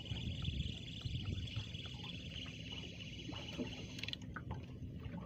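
A spinning reel being cranked to bring in a hooked fish on a small boat at sea, over a low rumble of wind and water. A steady high whirr runs with faint ticks and cuts off suddenly about four seconds in.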